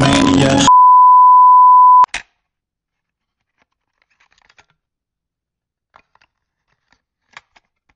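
Music cuts off and a loud, steady electronic beep tone sounds for about a second and a half, ending in a click. A few faint scattered clicks follow in near silence.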